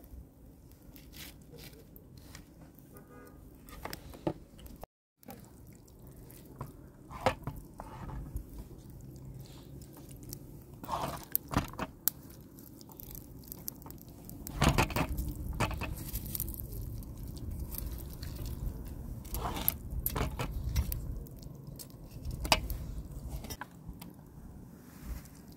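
Food-preparation handling sounds: a knife slitting a raw fish, then a wooden spoon scooping a moist herb stuffing from a metal pan and packing it into the fish, with wet squishes, scrapes and light clicks against the metal.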